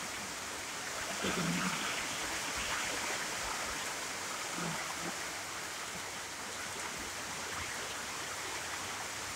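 Steady moderate rain falling, a continuous hiss, with a faint short voice-like sound about a second in.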